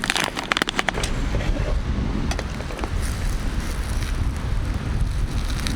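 Strong wind buffeting the microphone, a steady low rumble, with a quick run of clicks and taps in the first second and a few single ticks after.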